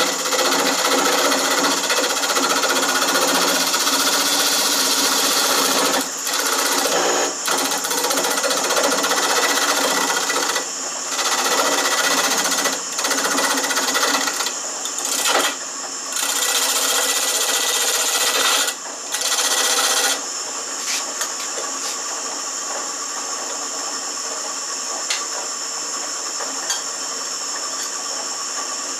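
Shopsmith 520 lathe running while a hand-held turning tool cuts a spinning wooden spindle: a loud, rough scraping with short breaks where the tool is lifted off. About twenty seconds in, the cutting stops and only the lathe's steady running hum is left.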